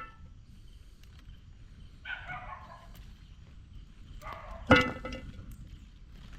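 Dog barking: a softer, drawn-out bark about two seconds in, then a single loud, sharp bark about three-quarters of the way through.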